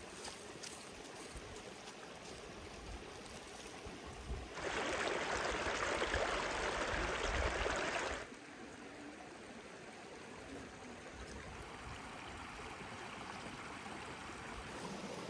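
Shallow mountain stream running over rocks, steady throughout; for a few seconds in the middle a small cascade splashes much louder up close.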